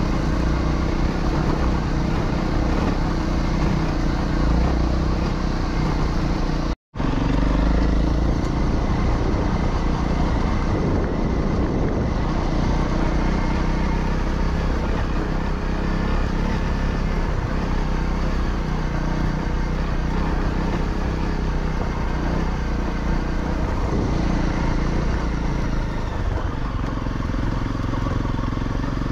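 Honda CRF250's single-cylinder four-stroke engine running steadily while the motorcycle is ridden, with a momentary gap in the sound about seven seconds in.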